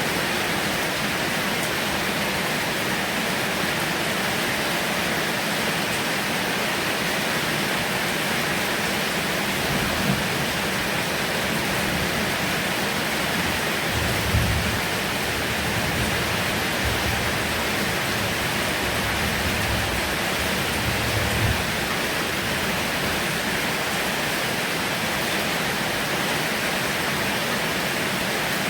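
Heavy rain falling steadily, with a few brief low rumbles around the middle.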